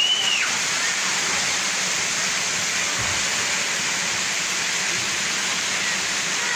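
Steady rush of falling water from a pool's spray fountains and water-play features splashing into the pool.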